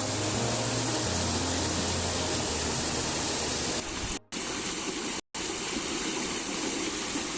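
Steady rush of flowing mountain water. A low music bed sounds under it for the first three seconds or so. The sound drops out to silence twice, briefly, a little after four and five seconds in.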